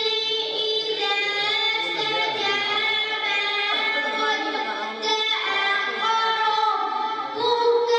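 A boy singing a Punjabi Islamic devotional song into a microphone, one voice drawing out long held notes that bend slowly up and down in pitch.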